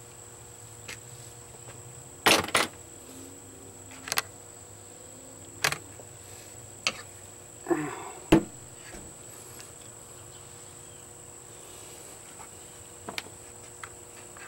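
Scattered knocks and clunks of an outboard's metal lower-unit gearcase being handled and set down on a workbench, the loudest a double knock about two seconds in and a sharp one past the middle. Under them runs a steady high-pitched insect drone.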